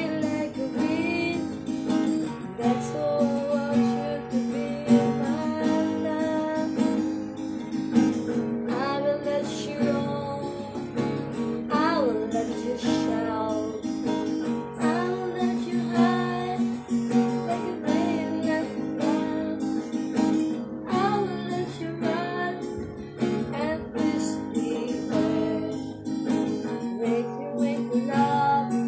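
Acoustic guitar strummed in a steady rhythm, with a voice singing a melody over the chords.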